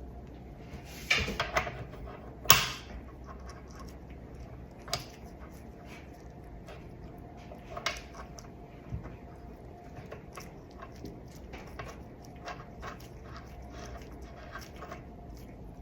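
Small metal mixer parts being handled and fitted into the stand mixer's gear housing: scattered clicks and clinks, with a cluster of knocks about a second in and the loudest knock a moment later, over a faint steady hum.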